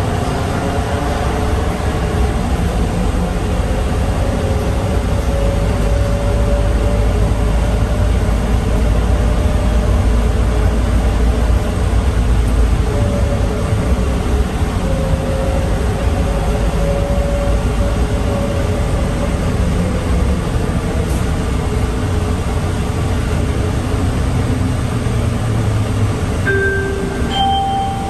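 Bombardier Innovia APM 100 automated people mover running, heard from inside the car: a steady low rumble from the rubber-tyred running gear with a wavering whine above it. Near the end a two-note chime sounds, the second note higher.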